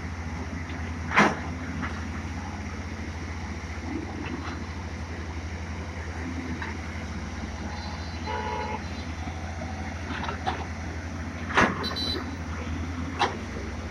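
JCB excavator's diesel engine running steadily, with a few sharp knocks at work, the loudest about a second in and two more near the end.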